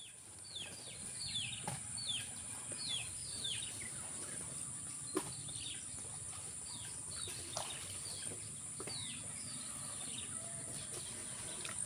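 A bird calling over and over in short, falling chirps, about two a second, pausing for a couple of seconds midway before starting again.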